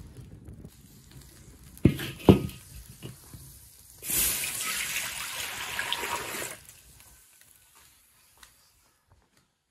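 A stream of water pouring into a large iron wok for about two and a half seconds, starting about four seconds in and stopping suddenly. Before it, two sharp knocks about two seconds in, and at the start the faint crackle of the wood fire under the wok.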